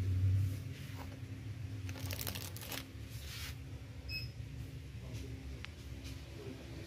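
Supermarket background with a steady low hum, phone handling noise and rustling around two to three seconds in, and a short faint beep about four seconds in.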